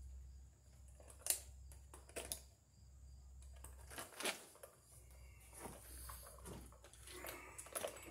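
Handling of 14-gauge electrical cable with a hand stripping tool: scattered light clicks, scrapes and crinkles of plastic, the sharpest click about a second in.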